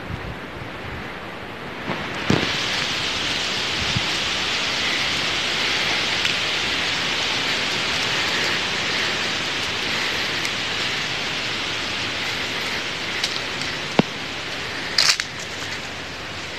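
Cicadas buzzing in a steady, dense chorus that swells up about two seconds in, with a few sharp clicks near the end.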